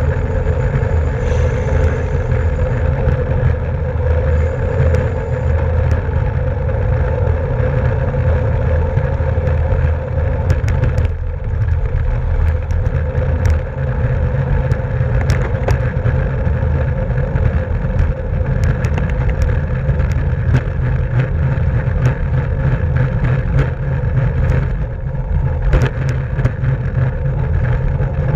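Wind buffeting the microphone of a camera on a bicycle racing at speed, a loud, steady low rumble with a steady hum running through it. Scattered sharp clicks and ticks come through, several of them between about ten and twenty seconds in and another near the end.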